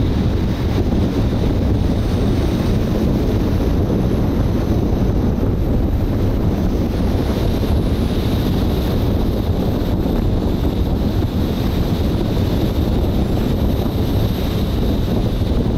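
Steady wind rumble buffeting the microphone of a camera mounted on a moving car, mixed with the car's road noise.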